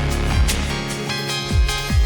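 Background music with a steady electronic beat and falling bass sweeps.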